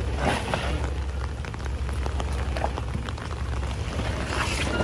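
Toyota 4Runner crawling over rocks at low revs, its engine a steady low rumble under the irregular crunching and popping of tyres and stones on loose rock, with a louder crunch near the end.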